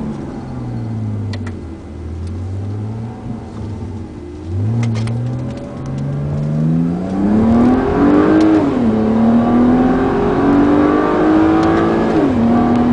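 BMW E90 328i straight-six with gutted primary catalytic converters and a Rogue Ikon exhaust, heard from inside the cabin. The engine note falls as the car slows, then rises hard as it accelerates, with two upshifts where the pitch drops sharply, the last near the end.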